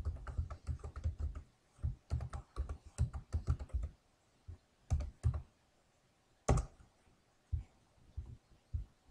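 Typing on a computer keyboard: a quick run of keystrokes over the first half, then a handful of separate key presses, one of them markedly louder than the rest.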